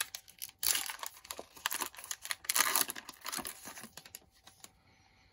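A trading card pack's wrapper being torn open and crinkled by hand, in several bursts that die down after about four seconds.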